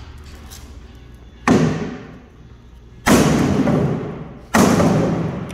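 A metal bathtub struck three times with a sledgehammer, about a second and a half apart. Each blow is a loud bang that rings on and fades.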